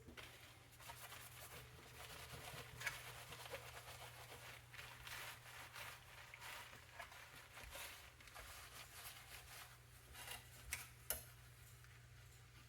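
Faint rubbing and scraping with a few light clicks over a steady low hum: hands handling and working on the parts of an all-in-one computer during disassembly.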